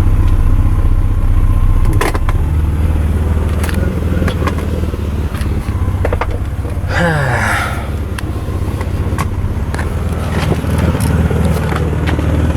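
Car engine running steadily with a low rumble, with scattered clicks and a short burst of noise with a gliding pitch about seven seconds in.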